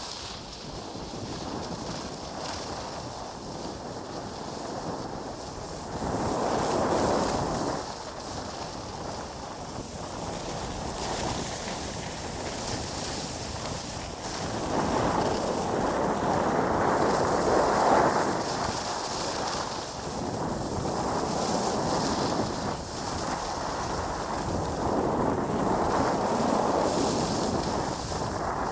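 Wind rushing over the camera's microphone while skiing downhill, mixed with skis hissing and scraping over packed, groomed snow. It swells louder three times for a few seconds each.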